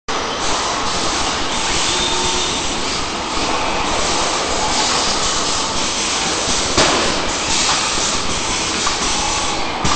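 Factory-floor din from a line of Fanuc industrial robots running a dry cycle without parts: a steady dense noise with hissing, and a sharp knock about seven seconds in and another near the end.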